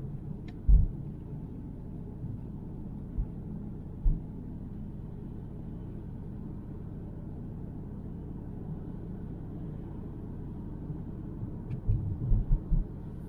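Steady low road and engine rumble inside a moving car's cabin, with a few short low thumps, several of them close together near the end.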